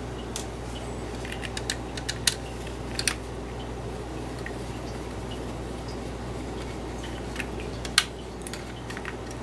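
Scattered sharp clicks and taps of a screwdriver and small screws against a graphics card's plastic fan shroud and metal parts as a cooling fan is unscrewed, with the loudest click near the end. A steady low hum runs underneath.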